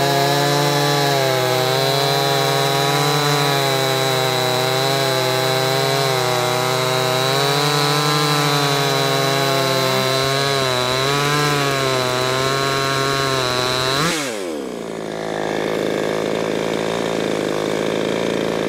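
Two-stroke 62 cc clone chainsaws (Coocheer 6200 and Wemars 6200) running at full throttle through a log, their engine pitch wavering under load. About 14 seconds in the sound changes suddenly to a single saw running steadily at a lower speed.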